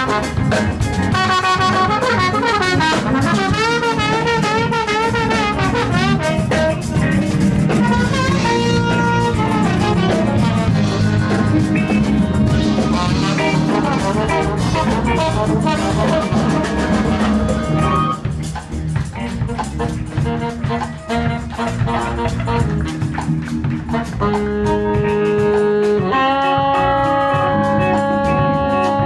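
Live soul band with a horn section playing an instrumental break: a trombone solo with wavering, sliding notes over bass, drums and keyboards. About eighteen seconds in the band drops down, and near the end the horns hold long notes together.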